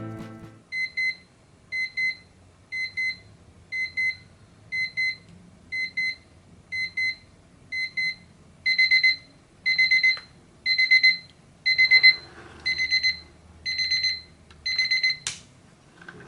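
Seiko QHE194 alarm clock's electronic alarm beeping: high beeps in pairs about once a second, which about nine seconds in turn louder and come in longer bursts of three to four, the clock's escalating alarm. It stops with a short click near the end.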